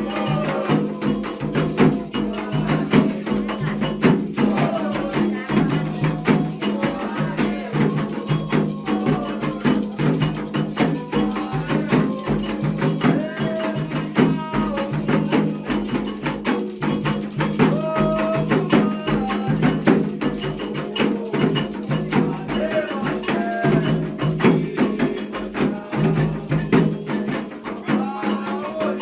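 Afro-Brazilian Candomblé ritual music: drums and sharp struck percussion keeping a dense, driving rhythm while voices sing a chant.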